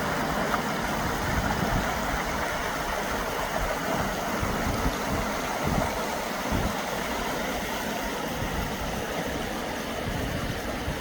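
Steady rush of a flowing river, with an uneven low rumble underneath.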